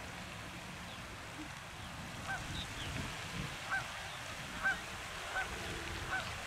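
Goose giving a series of short honks, about one a second, starting about two seconds in, over a steady rush of water from the pond fountain.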